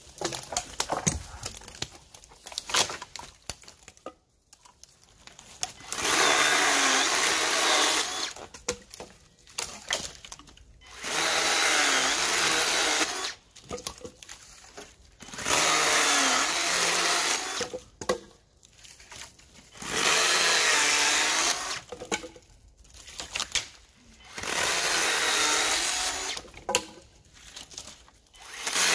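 Makita DUC252 2x18V cordless chainsaw run in six short bursts of about two seconds each, roughly every four and a half seconds, with the motor's pitch wavering as it cuts. Small clicks and rustles fall between the bursts.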